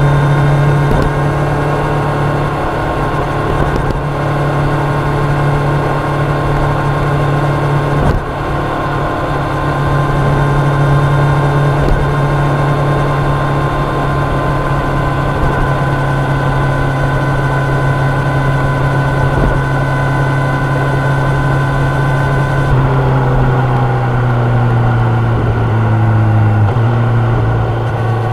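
Kawasaki Ninja 1000's inline-four engine and exhaust holding a steady note at cruising speed, over a haze of wind and road noise. About three-quarters of the way in the engine note drops a little and wavers as the throttle is eased, dipping briefly near the end and then steadying again.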